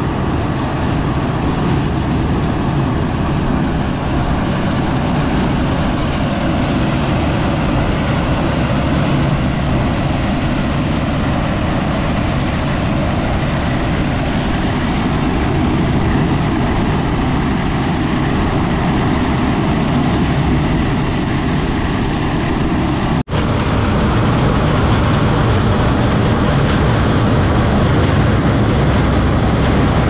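Combine harvester running steadily, a loud continuous engine and machinery drone with a low rumble. It cuts out for an instant about three-quarters of the way through, then carries on a little louder.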